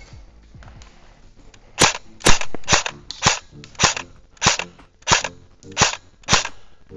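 Airsoft gun firing single shots in quick succession: nine sharp cracks about every half second, starting about two seconds in.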